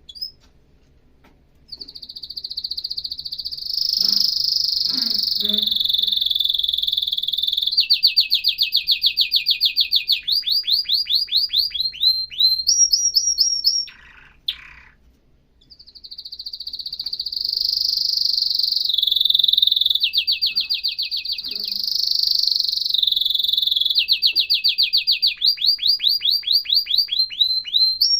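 Male domestic canary singing: two long song phrases with a short pause near the middle. Each phrase opens with a rolling warble, breaks into fast trills of rapidly repeated notes, and ends on a few higher notes.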